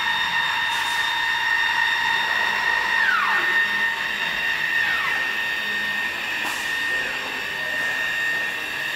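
AutoBox AB300 box-making machine resetting for a new job, its fence and slot-blade carriages driven along ball screws into position: a steady high whine, with the pitch dropping sharply about three seconds in and again twice more as the axes slow and stop.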